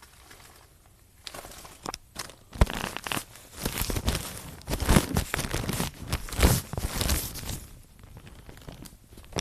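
Plastic sleeve crinkling and rustling in bursts as a paper manual is worked out of it, quiet for the first second and dying down near the end.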